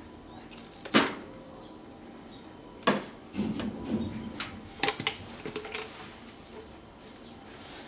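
A metal measuring spoon knocking against a plastic measuring cup, with sharp clicks about one second and three seconds in, then scraping as it stirs miso seasoning in the cup, followed by several lighter knocks.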